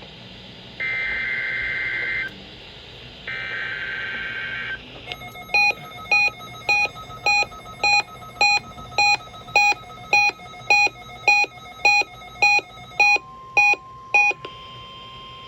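NOAA Weather Radio SAME/EAS header data bursts for a Required Weekly Test, heard through a weather radio's speaker: two harsh digital warbling bursts of about a second and a half each. Then rapid electronic beeping, about fifteen beeps at roughly two a second, and near the end a steady tone begins.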